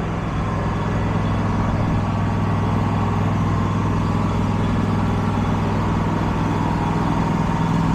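Wood-Mizer portable bandsaw mill's engine running steadily between cuts, with no log being sawn.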